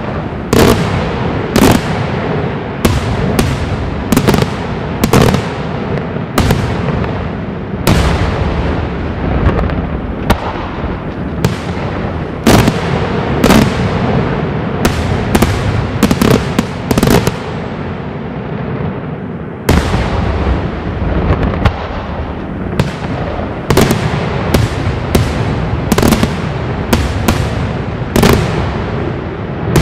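Daytime aerial fireworks shells bursting overhead in a rapid, irregular series of loud bangs, about one or two a second, over a constant low rumble, with a brief dip just before two-thirds of the way through.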